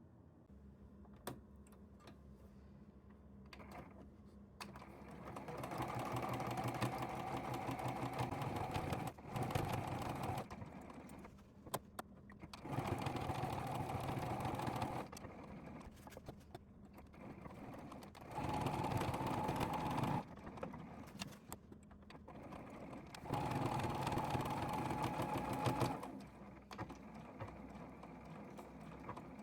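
Electric sewing machine stitching in about five short runs of two to three seconds each, stopping and starting, with small clicks in the pauses between runs.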